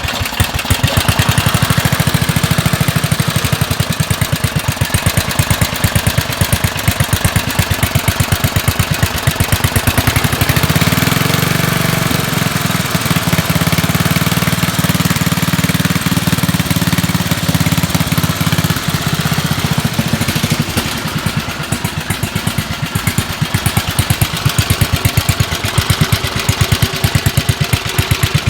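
8 hp Briggs & Stratton single-cylinder engine on a Rugg Carpet Cut riding tractor, running steadily with a rapid, even firing beat. About ten seconds in its speed goes up, and about twenty seconds in it drops back; the speed is set by hand throttle because the governor is broken.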